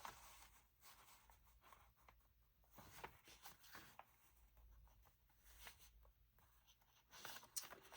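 Near silence with faint rustling and light handling noises of paper.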